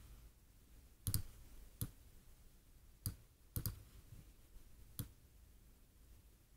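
Computer mouse clicking while colours and sliders are set on screen: a handful of short, sharp clicks at irregular intervals, some in quick pairs, over faint room noise.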